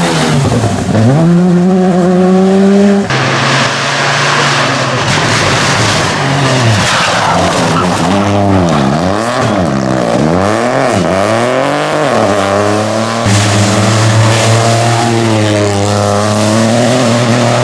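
Rally cars driven flat out on a tarmac stage: engines revving hard, the pitch climbing and dropping again and again through the gear changes, with tyre noise. The sound changes abruptly about 3 seconds in and again about 13 seconds in, as one car's run gives way to the next.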